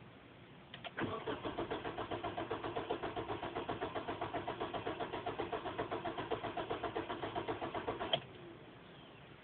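A car engine being cranked by its starter motor for about seven seconds, turning over in an even beat of roughly five pulses a second without catching, so the car fails to start. A click as the key is turned comes just before the cranking, and a sharp click as it cuts off.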